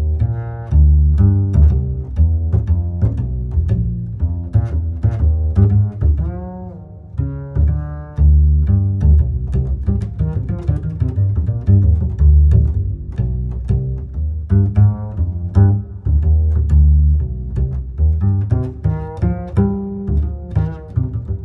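Background music: a bouncy tune with plucked and bowed low strings over a strong bass line.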